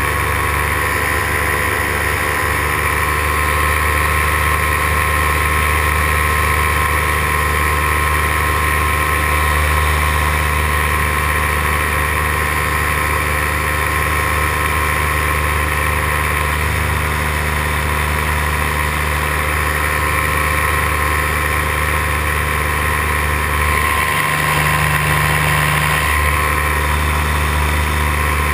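Paramotor engine and propeller running steadily in powered flight, with a brief change in the engine note near the end.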